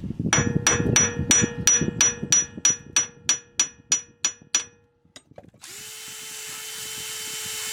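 A hammer striking rusty metal about three times a second, each blow ringing, to break up the rust scale. After a short pause a small power tool starts up and runs steadily, getting louder.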